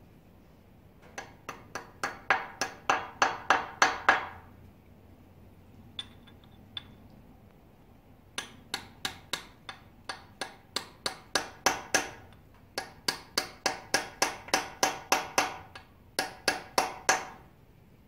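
Small hammer tapping the keys into the keyway slots of a Chevy 350 crankshaft snout: quick, ringing metal-on-metal taps about four a second, in four runs with short pauses between them.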